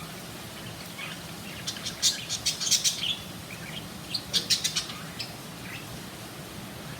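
Pet budgerigars chirping: two quick clusters of short, sharp, high-pitched chirps, about two seconds in and again about four seconds in.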